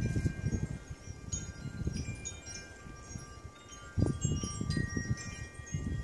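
Chimes ringing in scattered, overlapping high tones, each ringing on after it sounds, over an uneven low rustling rumble that grows louder about four seconds in.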